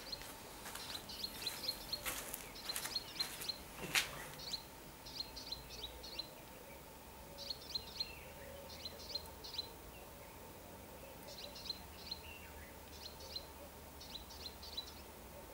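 Small birds chirping in repeated short clusters of quick high chirps, with a few sharp clicks in the first four seconds, the loudest about four seconds in, over a faint steady hum.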